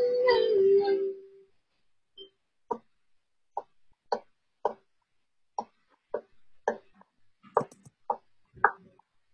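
A sung note fades out about a second in. It is followed by short, clipped ukulele strokes in a rhythm of threes, about half a second apart with a longer gap between groups. The sound comes over a video call, so each stroke is cut off dry.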